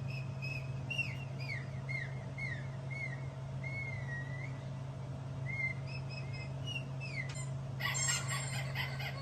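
A bird chirping: a run of short whistled chirps, mostly sliding down in pitch, with one longer wavering whistle, then a louder, rougher burst of calls about eight seconds in. A steady low hum runs underneath.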